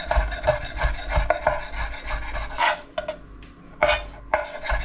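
Knife sawing through a slab of smoked bacon, a quick run of short cutting strokes. The strokes ease off briefly about three seconds in, with a few louder strokes around the lull.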